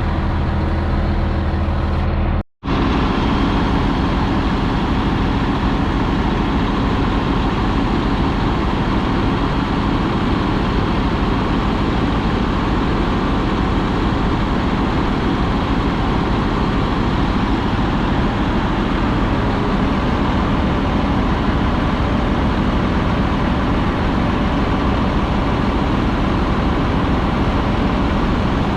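Diesel engine of a single-axle semi, a Cummins ISM, running steadily. The sound drops out for a moment about two and a half seconds in, then carries on as a denser, even rumble.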